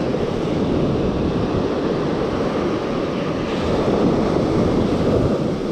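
Steady rush of surf mixed with wind buffeting the microphone.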